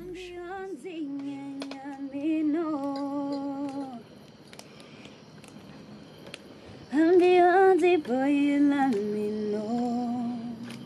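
A solo voice humming a slow, wordless melody in long held notes, in two phrases with a pause of a few seconds between them.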